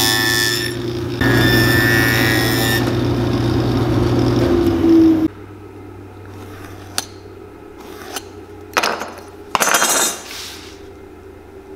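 A cobbler's sanding machine running steadily while a leather sole is ground against its abrasive drum. It stops abruptly about five seconds in. After that come a few light clicks and short scratches as a steel awl and dividers mark the leather.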